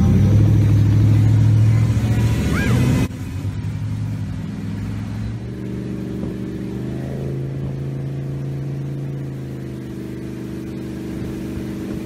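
Regal 2500 motorboat's engine running under way, a steady low drone with a rush of wind and water over it, loudest for the first three seconds and then dropping suddenly. About five and a half seconds in the engine's pitch steps up as it gains speed.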